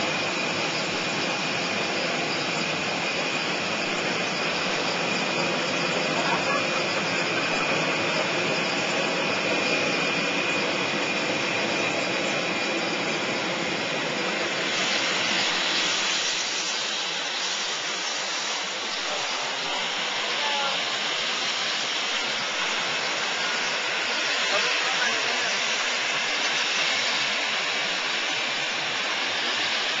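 Airbus A320 jet noise on the ramp during pushback: a steady rushing with a thin high whine that fades about halfway through, after which the hiss grows brighter.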